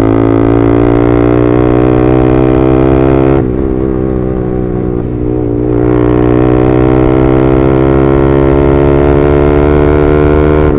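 Yamaha R15M's 155 cc single-cylinder engine through an SC Project full-system exhaust while riding, a loud steady droning note. About three and a half seconds in the note drops and quietens, then comes back up about two seconds later and holds steady.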